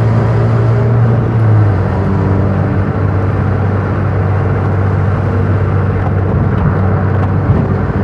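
Car engine and exhaust running under acceleration with the exhaust cutout valve closed, a steady deep drone. Its pitch drops slightly a little under two seconds in.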